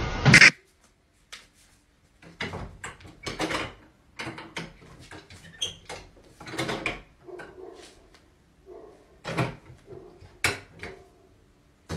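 A loud bang right at the start, then a door handle and latch being worked, rattling and clicking in an irregular run of knocks.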